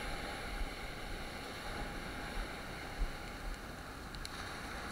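Ocean surf washing on the beach with wind buffeting the microphone: a steady rush with uneven low thumps, the sharpest about three seconds in, and a few faint ticks a little after four seconds.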